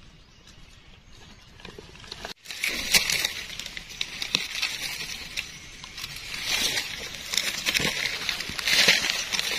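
Dry leaf litter rustling and crackling, irregular and uneven, starting quiet and getting louder after about two and a half seconds.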